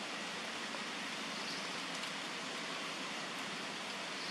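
Steady, even outdoor background hiss with no distinct sound standing out.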